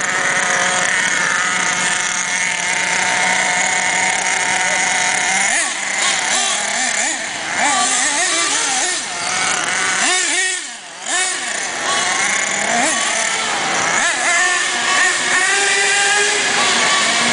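Small nitro (glow-fuel) engines of radio-controlled cars running with a high-pitched buzz, revving up and down repeatedly through the middle as the cars are driven, with a short drop in the sound about ten seconds in, then holding a steadier high note near the end.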